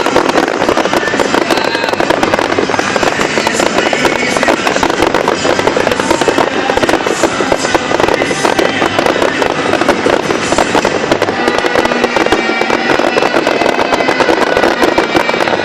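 Fireworks barrage: a dense, continuous run of rapid crackles and bangs with no let-up, over music playing.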